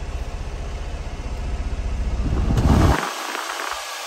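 The Honda Acty's small three-cylinder engine idling with a low, even throb that grows louder. A little before three seconds in there is a click, and then a steady rush of air from the dash vents takes over.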